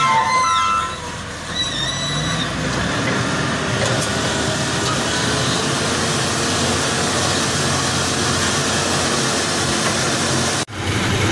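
Wheel loader's diesel engine running steadily under load as its bucket pushes into a heap of earth. A few brief high chirps sound in the first second, and the sound drops out for an instant near the end.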